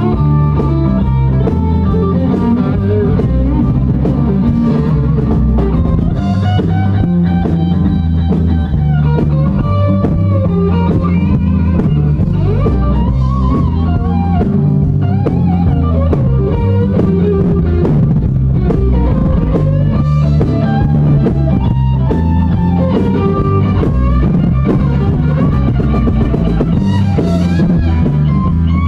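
A live rock band playing an uptempo rock-and-roll number at full volume, with two electric guitars, bass guitar and a drum kit.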